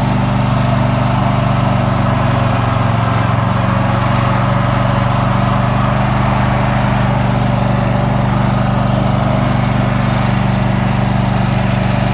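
Riding lawn mower's engine running loud and steady at an even speed.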